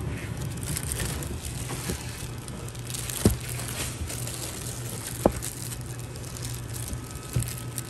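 Thin plastic produce bags crinkling and rustling as a hand handles and lifts bagged breadfruit in a cardboard box, with two sharp clicks about three and five seconds in, over a steady low hum.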